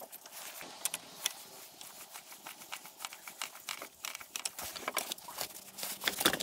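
Scattered metallic clicks and taps of hand tools, a wrench on a socket extension, working a bolt at the gearbox bell housing under the car, coming quicker and louder toward the end.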